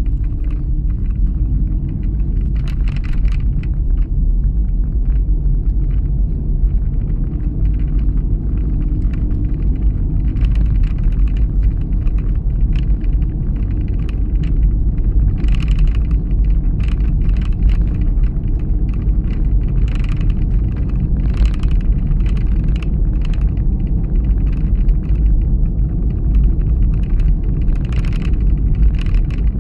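Steady low rumble of a car driving on a narrow, uneven tarmac road, engine and tyre noise heard from inside the cabin, with short sharper noises now and then.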